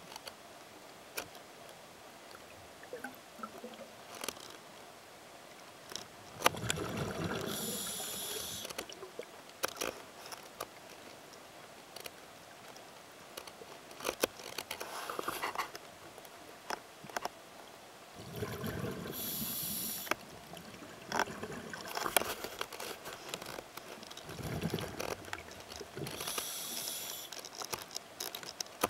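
Diver's scuba breathing underwater: three or four long bursts of exhaled bubbles rumbling out, with a high hiss from the regulator, over scattered small clicks and crackles.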